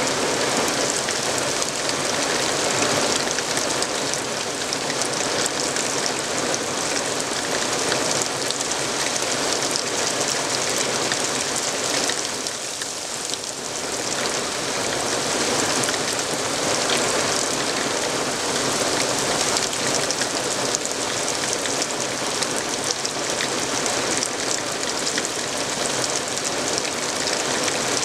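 Steady rain falling on pine woodland and grass: a dense, even hiss of many drops, easing a little for a couple of seconds about halfway through.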